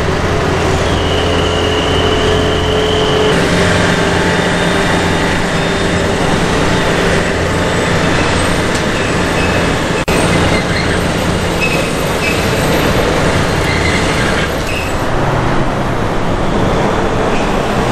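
Roadside traffic noise, with a bus engine running near the start, then passing vehicles. The sound changes abruptly a few times.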